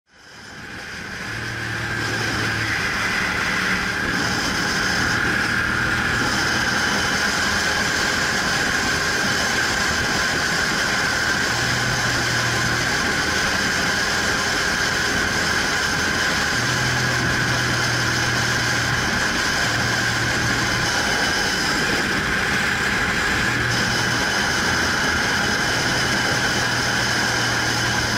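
Vehicle engine running steadily at highway cruising speed under wind and road noise, fading in over the first second or two.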